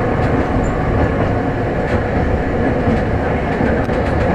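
Toden Arakawa Line streetcar running along the track, heard from inside the cab: a steady rumble of wheels on the rails and running gear, with a few faint clicks.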